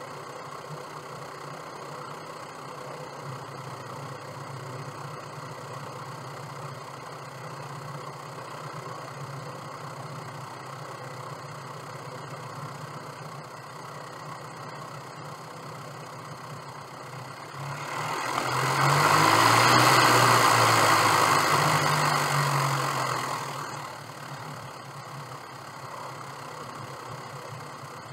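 Light aircraft's piston engine idling steadily during taxi. A little past halfway the throttle is opened and the engine runs up loudly for about six seconds, its pitch shifting, then settles back to idle.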